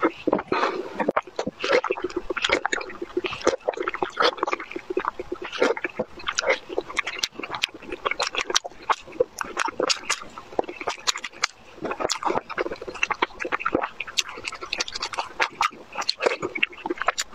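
Close-miked eating sounds: a quick run of wet chewing, lip smacks and sucking clicks, with slurping from a ladle at the start.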